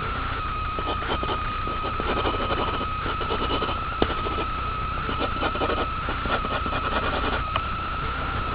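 Faint irregular scratching of a graphite pencil sketching on paper, under a steady high-pitched whine and low hum that run throughout.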